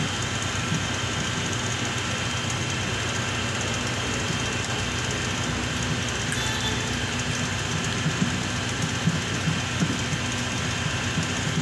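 Steady machine-like noise with a few faint high tones held throughout and an even level.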